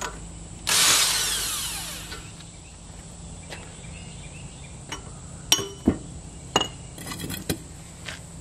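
A cordless power tool runs briefly on the Dana 60's pinion nut, spinning it off, and its whir falls away over about a second. Then come several sharp knocks, close together, as a hammer taps the pinion out of the housing.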